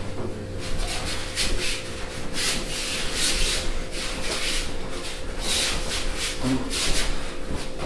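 Bare feet shuffling and sliding on a judo mat, with the cotton gis rustling as two judoka grip and move: a run of irregular scuffs.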